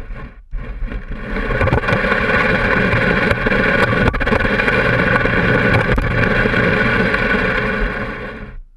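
Can-Am Spyder three-wheeler's engine running steadily as it rides. It starts abruptly, dips for a moment about half a second in, and cuts off suddenly near the end.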